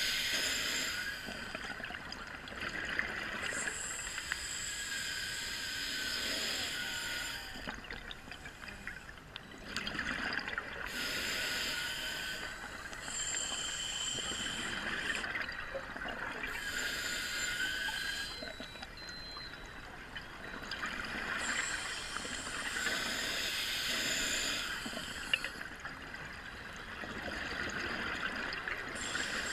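Scuba diver breathing through a regulator underwater: bubbling, hissing spells alternate with quieter gaps in a slow, regular cycle of several breaths.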